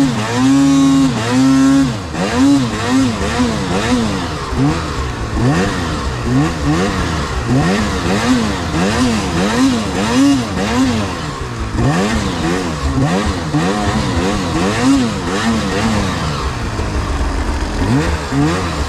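Two-stroke engine of an Arctic Cat Alpha mountain snowmobile revving up and down in quick repeated throttle blips, one after another, as the sled is worked through hard, icy snow.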